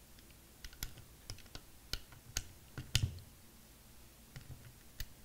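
Ratchet-head torque wrench clicking as the fan clutch's friction retaining plate screws are run down to 30 inch-pounds: about a dozen sharp clicks in uneven groups, the strongest about three seconds in.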